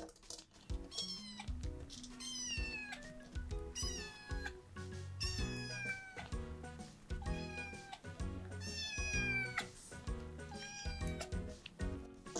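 A young kitten crying for milk: about seven meows, each starting high and falling in pitch, spaced every one to two seconds, over background music.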